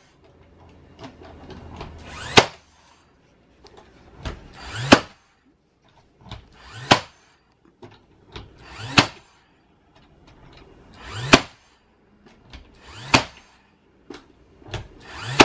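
20V battery-powered cordless nail gun firing seven times, about one shot every two seconds: each time its motor whirs up in a short rising whine, then a sharp crack as a nail is driven through the thin plywood patch into the door.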